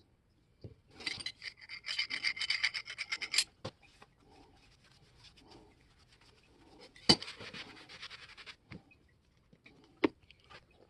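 Rapid rasping strokes of a hand tool scraping metal, in two runs, with a sharp click at the start of the second run and another near the end.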